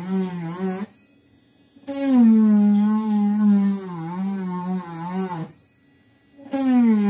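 Small corded rotary tool whining as it bores through coconut shell, in three runs with short pauses between them. Its pitch sags and wobbles as the bit bites in. It is drilling drain holes in a coconut-shell soap dish so the water can run out.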